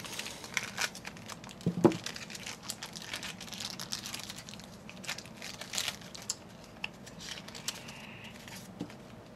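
Plastic wrapping crinkling and tearing, with scattered small clicks, as a toy's blister packaging is unwrapped by hand.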